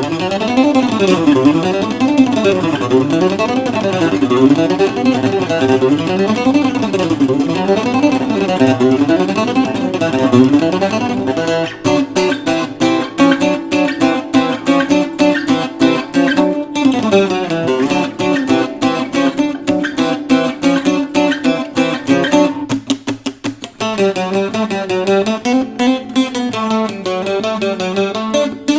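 Bajo quinto with nickel strings played solo: quick picked runs climbing and falling in the first ten seconds or so, then chordal strumming and picking, with a short pause a little over two-thirds of the way through.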